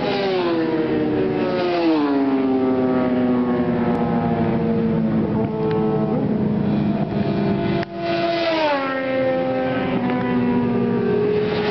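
Sport motorcycles on a caution lap riding past close by at moderate, steady throttle. The engine note drops in pitch as each bike goes by, three times: at the start, about two seconds in, and again after a brief break near eight seconds.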